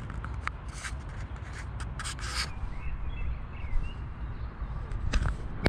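Wind rumbling steadily on the microphone, with scattered clicks and scuffs of steps and handling on riverbank stones. Faint bird chirps come in about halfway through.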